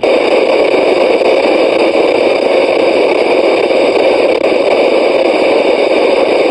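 Loud, steady rushing noise with a few faint steady tones in it. It cuts in abruptly and drowns out the weather radio warning broadcast.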